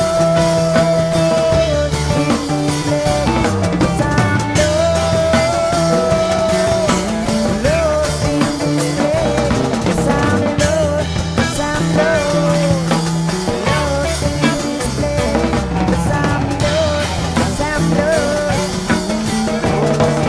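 Rock music soundtrack with drums and bass under a melody line that holds long notes and bends between them.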